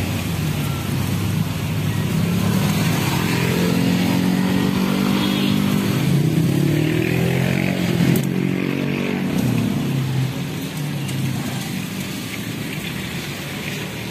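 A motor vehicle's engine passing on the street: its note swells, shifts in pitch as it goes by about halfway through, then fades over the last few seconds.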